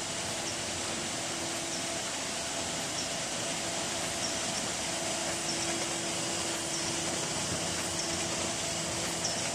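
Multi-station paper gathering (collating) machine running: a steady mechanical whir and hum, with faint light clicks about once a second.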